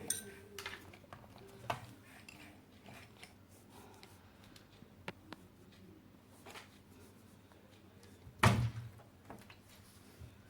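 Faint scattered clicks and taps of drawing and painting materials being handled on a desk, with one louder thump about eight and a half seconds in.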